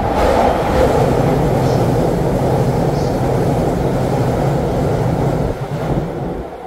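Electric commuter train running along a station platform: a loud, steady rolling rumble with a motor hum, dying away near the end as the train moves off.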